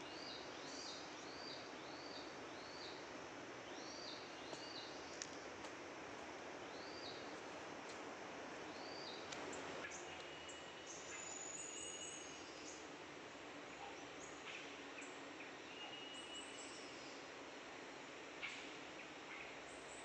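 Birds calling over a steady background hiss: a run of short, arched high chirps about twice a second for the first few seconds, then scattered chirps and a few longer held whistles. A couple of sharp ticks stand out, the loudest near the end.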